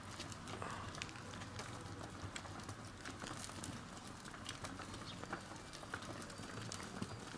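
Irregular light taps and clicks, scattered unevenly over a faint steady background.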